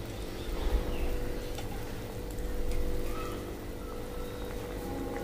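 Soft plops and light knocks as paneer cubes are dropped into thick tomato gravy in a metal kadhai, over a steady low hum.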